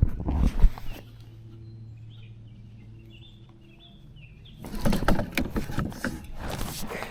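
Small birds chirping in a quiet stretch, framed by loud knocking and rustling at the start and a longer run of rustling and knocks from about two-thirds of the way in.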